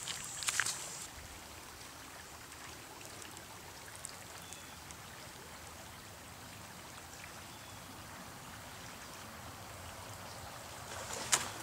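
A small river running over a shallow riffle: a steady, soft rushing hiss. A few brief clicks come about half a second in, and another near the end.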